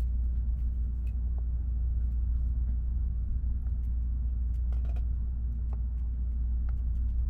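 Steady low rumble inside the passenger cabin of a Tokaido Shinkansen Nozomi bullet train running at speed, with a few faint clicks.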